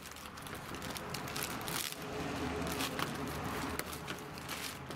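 Faint handling noise: light rustling with a couple of small clicks, as parts of a brushcutter handlebar are handled during assembly.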